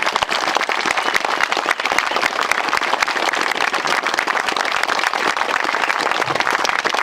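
A crowd applauding, a dense, steady patter of many hands clapping.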